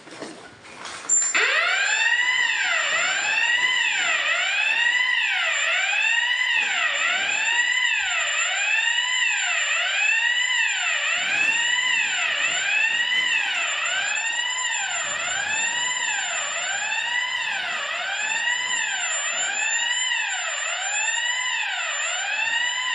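Fire alarm system's electronic sounder going off during a smoke detector test, the sign that the detector has tripped the alarm. It starts suddenly about a second in: a loud wailing tone that rises and falls about once a second, with a thin steady high whistle over it.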